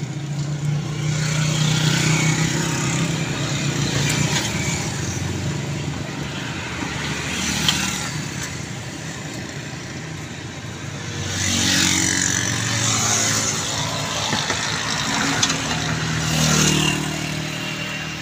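Motor vehicle engines running, swelling louder about two-thirds of the way through and again near the end.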